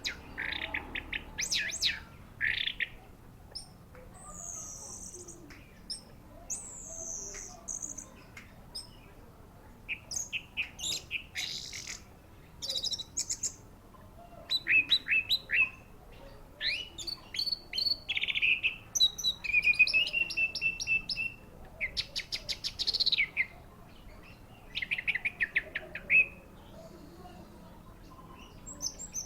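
Orange-headed thrush (anis merah) singing a varied song of rapid trills, chattering runs and clear whistles, in bursts separated by short pauses.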